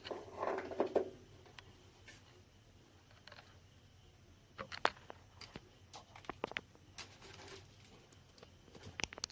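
Scattered light clicks, taps and rustles of hands handling the amplifier board and tools on a workbench, with a short rustling patch in the first second and clusters of clicks later on.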